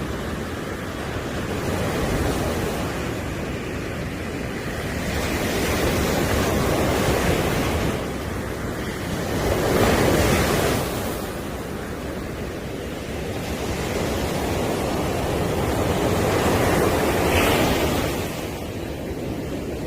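Sea waves breaking on a beach, the surf swelling and falling back in several slow surges, loudest about halfway through.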